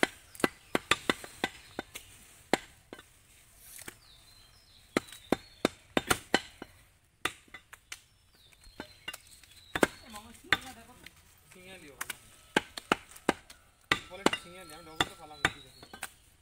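Butcher's cleaver chopping beef on a wooden log chopping block: sharp chops in quick, irregular runs, broken by short pauses.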